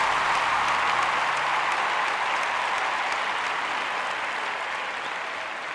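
Audience applauding, the clapping slowly dying down, with the last held note of the music fading out under it in the first couple of seconds.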